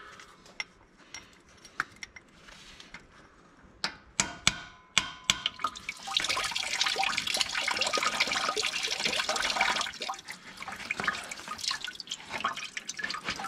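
A few sharp metal taps of a punch against a freeze plug in a tractor engine block. About six seconds in, antifreeze coolant gushes out of the loosened plug hole and splashes onto the starter motor below, easing to a splattering trickle after a few seconds.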